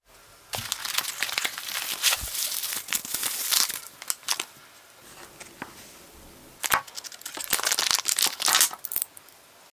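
Crinkling plastic packaging: a clear zip-lock bag of parts being handled and opened, with sharp clicks mixed in. It comes in two spells, from about half a second in to about four and a half seconds, then again from nearly seven seconds to about nine.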